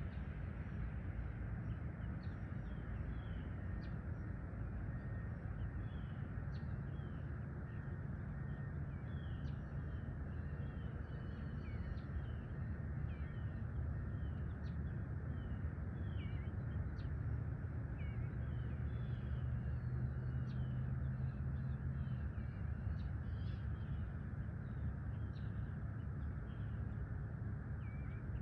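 Many small birds chirping and calling in short notes throughout, over a steady low outdoor rumble that swells slightly past the middle.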